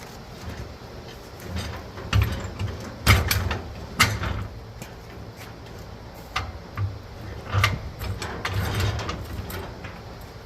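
Irregular metal clanks and knocks as a jack is worked under a heavy metal part, over a steady low hum.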